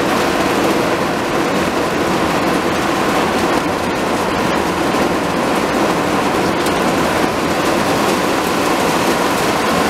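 Heavy rain pouring down in a steady, loud downpour, splashing onto a concrete patio and plastic lawn chairs.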